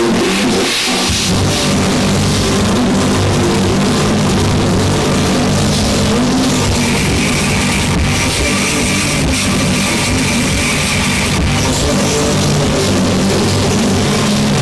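Rock music played at maximum volume through several JBL portable party and Bluetooth speakers at once, loud and dense throughout; heavy bass comes in about a second in.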